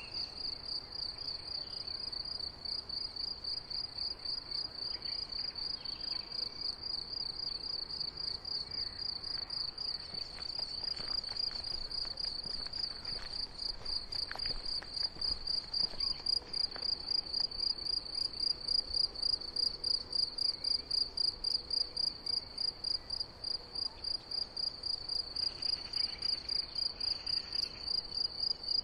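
Cricket chirping steadily, a high-pitched pulsing song at about two to three chirps a second, growing louder about halfway through.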